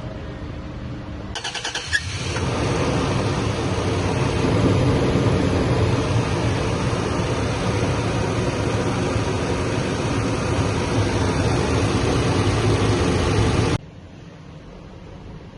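Toyota Land Cruiser 200's 1GR-FE V6 cranking for under a second and catching quickly, then running steadily before cutting off suddenly near the end. It is the engine starting easily on its newly replaced fuel injectors.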